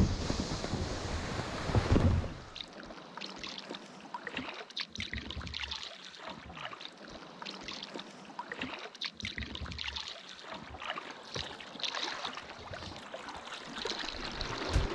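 Wind buffeting the microphone for about two seconds, then a steady run of small splashes and water trickling and lapping as a sea kayak is waded through shallow water.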